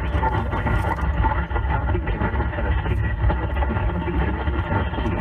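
Steady static and noise of a weak, distant AM radio signal, with no speech, thin and muffled as AM audio is.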